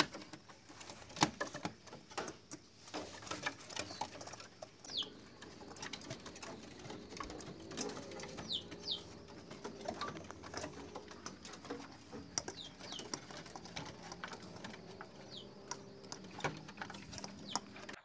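Domestic pigeon cooing faintly, with scattered light clicks and taps.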